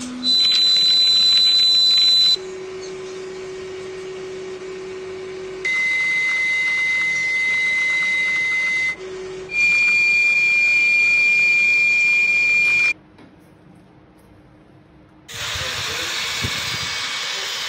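Small DC electric motors of a handmade model excavator running in short separate spells, each a steady whine at its own pitch that starts and stops abruptly, some high and loud, one low and softer. Near the end a broad hissing rush takes over.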